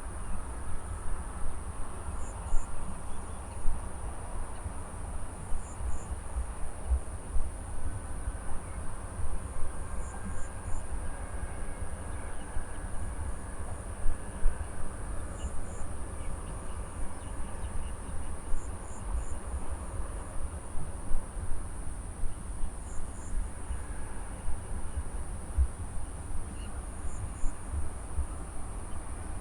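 Insects trilling steadily at a high pitch, with a short double chirp repeating every three to four seconds. Underneath is a low, gusting rumble of wind on the microphone, the loudest part, with frequent brief bumps.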